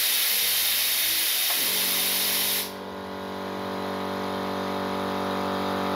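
Compressed air hissing out loudly, with the VEVOR 2-900F8 oil-free air compressor's 900-watt motor starting about a second and a half in; the hiss stops abruptly about a second later, leaving the compressor running with a steady hum.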